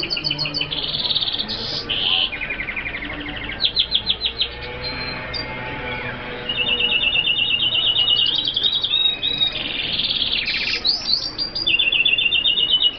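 Hooded siskins singing: a continuous twittering of fast trills and rattling runs of repeated high notes, one phrase after another.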